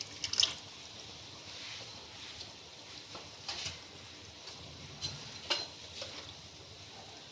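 Minced chicken frying in oil and vinegar in a non-stick pan, a steady low sizzle, with a few light clicks near the start and again about three and a half and five seconds in.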